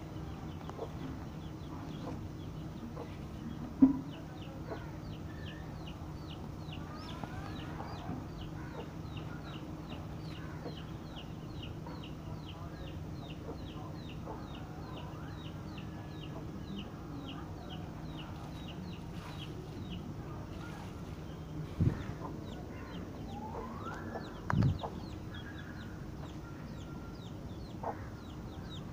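Young chicks cheeping in a long, rapid series of short high peeps, about three a second: the persistent calling of hungry chicks. A few louder chicken calls break in, one about four seconds in and two near the end, over a steady low hum.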